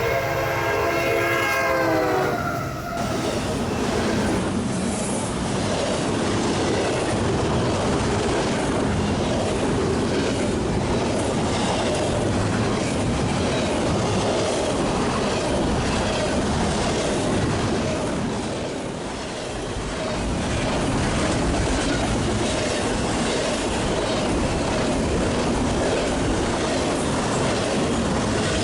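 A diesel locomotive's multi-note horn sounds its chord, dropping slightly in pitch as it cuts off about two and a half seconds in. A freight train then passes close by, the wheels rumbling and clattering steadily over the rails.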